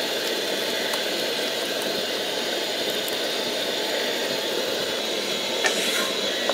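Gravy boiling in a pan over a gas flame: a steady rushing noise, with a light clink of a utensil near the end.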